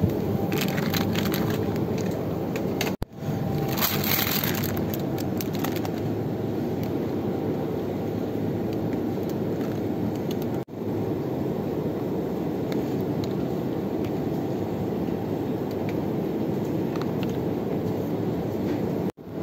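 Steady supermarket background hum from chiller cabinets and air handling. Crinkling of plastic food packaging being handled comes through in the first few seconds, and the hum breaks off briefly at a few edit cuts.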